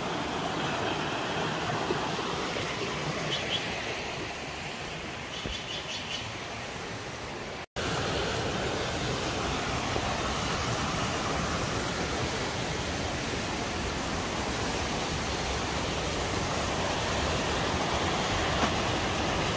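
Steady rush of flowing water. It breaks off for a moment about eight seconds in, then goes on a little louder.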